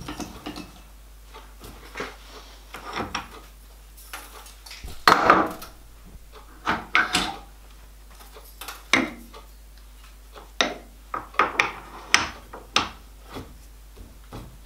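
Metal clinks and knocks as a cutting tool and its holder are swapped on a metal lathe's toolpost, with the lathe stopped. It is an uneven scatter of single knocks, the loudest about five seconds in.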